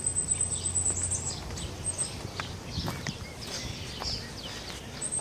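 Small birds chirping in short scattered calls over a low steady hum, with a thin high steady tone that stops about a second in.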